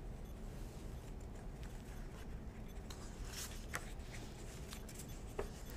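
Quiet room tone with faint rustling of paper pages being handled, a few soft rustles about three seconds in and once more near the end.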